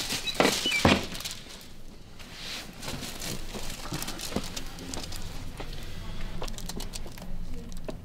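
Rustling and creaking as a person rolls over onto a padded vinyl chiropractic table, loudest in the first second, with a few short squeaks. After that comes quieter rustling of clothing and small clicks as hands work over the upper back.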